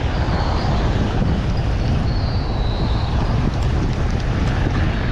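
Strong wind buffeting the microphone: a steady, loud low rumble of noise, with the wash of surf underneath.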